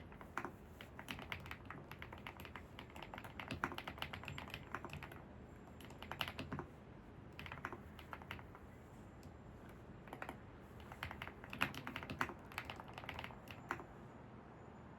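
Computer keyboard typing in quick runs of keystrokes broken by short pauses, the longest run about eleven to fourteen seconds in.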